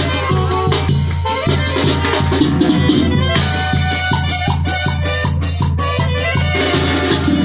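Live band playing upbeat dance music, with saxophone and drums over a steady, sustained bass line.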